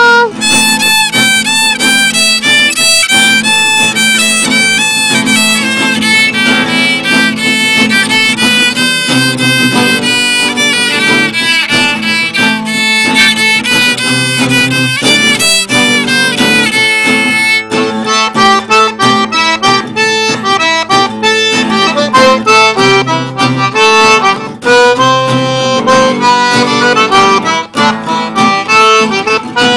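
Cajun band instrumental: fiddle playing the lead over a button accordion and a strummed acoustic guitar. Later on the fiddle stops, leaving accordion and guitar.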